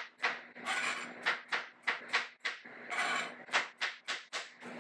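Chef's knife chopping soft dragon fruit on a plastic cutting board: quick knocks of the blade hitting the board, two to three a second, in short runs with brief pauses between.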